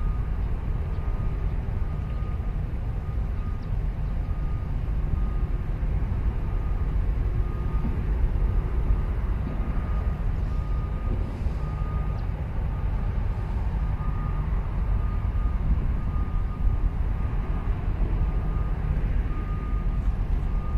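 An electronic warning beeper sounds a steady series of short, even beeps, a little faster than once a second, like the travel or reversing alarm of container-terminal machinery. Under it runs a constant low rumble.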